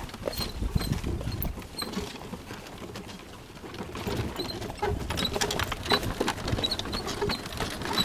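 Horse-drawn cart rolling on a dirt road: the horse's hooves clopping and the cart rattling, with short high chirps over it. It gets louder and busier about halfway through.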